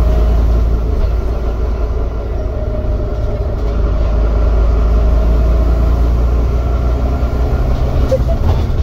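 Volvo B9TL double-decker bus under way, heard from inside the passenger saloon: its six-cylinder diesel engine and drivetrain give a steady deep rumble with road noise, and a faint whine above it.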